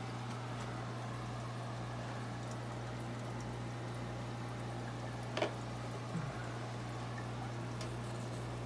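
Aquarium water bubbling and trickling from the tanks' aeration and filtration, over a steady low hum, with a single short click about five seconds in.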